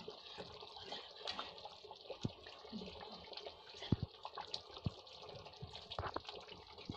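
Thick onion-tomato gravy simmering in a metal kadhai, bubbling and popping softly, with a few sharp knocks of the steel ladle against the pan, the loudest about four and six seconds in.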